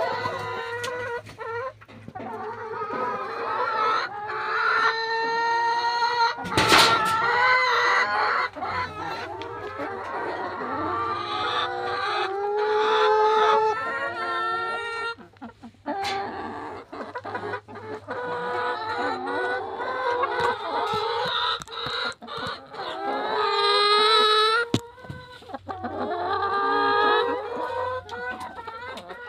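A flock of chickens clucking and calling continuously, with a few longer drawn-out calls among the clucks. A brief knock about seven seconds in is the loudest moment.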